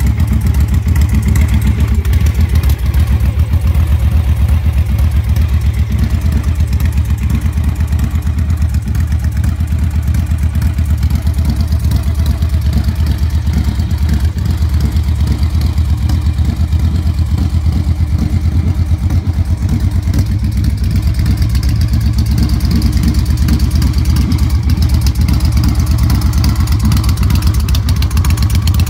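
2005 Victory Kingpin's V-twin engine idling steadily through its chrome exhaust pipes, an even low note with no revving.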